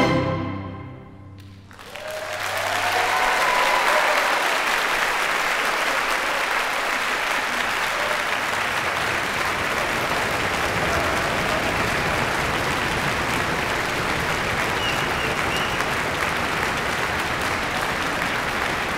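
A string orchestra's final chord rings and dies away in the hall. About two seconds in, audience applause starts and holds steady, with a few cheers.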